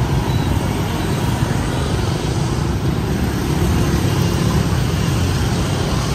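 Busy city street traffic: a steady, loud wash of engine and road noise with a deep rumble, no single vehicle standing out.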